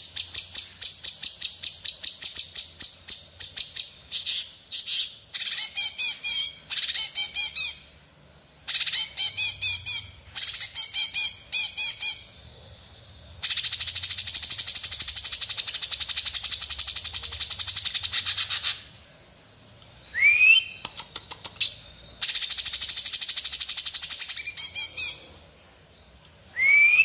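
A caged leafbird (cucak cungkok) singing hard: bouts of very fast, high chattering notes broken by short pauses, with a sharply rising whistled note about twenty seconds in and again at the end.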